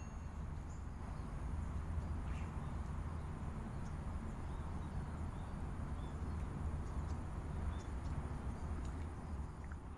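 Outdoor lakeside ambience: a steady low rumble with a few faint short chirps scattered through it.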